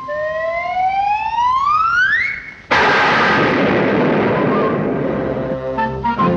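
Cartoon sound effect: a rising whistle climbs for about two seconds, then a sudden loud explosion goes off and fades away over about three seconds. Orchestral music comes back in near the end.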